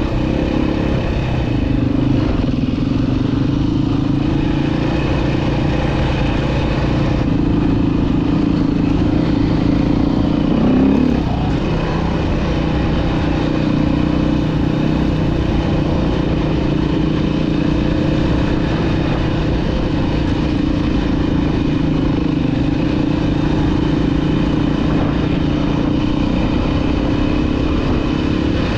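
Dirt bike engine running at a fairly steady pace while riding, with a brief rise in revs about eleven seconds in.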